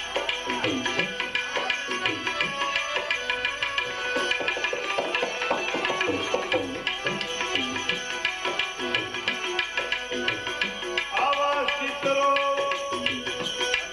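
Tabla playing a fast, dense rhythm in bhajan accompaniment, its bass strokes bending down in pitch. A sustained melodic note comes in about eleven seconds in.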